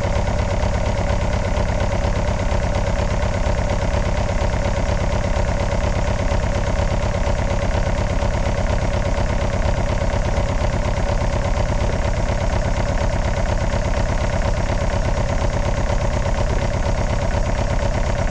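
Starter motor cranking the diesel engine of an old camping car, turning it over steadily for a long time without it catching. The fuel system has lost its prime, so diesel is not reaching the engine.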